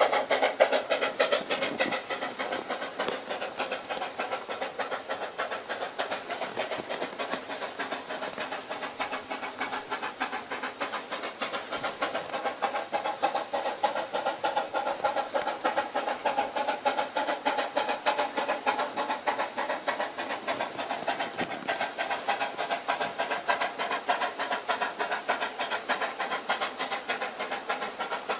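C2 narrow-gauge steam locomotive working, its exhaust chuffing in a steady, quick beat.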